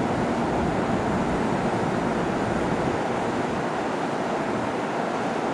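Steady rushing noise of an Aichi Loop Railway 2000 series electric train standing at the platform with its onboard equipment running, just before departure.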